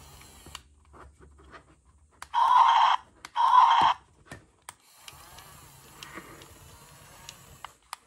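Toy remote-control excavator giving two loud, buzzy electronic beeps, each about half a second long and about a second apart. These are followed by the fainter whir of its small electric track motors as it drives off.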